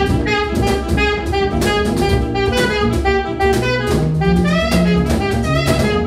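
Live jazz: a saxophone plays a melody over a drum kit.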